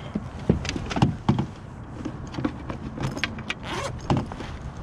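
Knocks and clatter of a landing net and a fish being handled on a kayak, with the zipper of an insulated fish bag rasping open in the second half.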